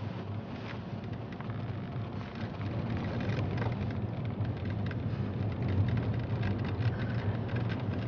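Car running slowly on a road, heard from inside the cabin: a steady low engine hum under rough tyre and road noise, with faint crackling ticks.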